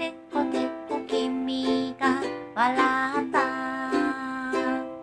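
Closing theme song: plucked-string accompaniment with a sung melody, ending on held chords near the end.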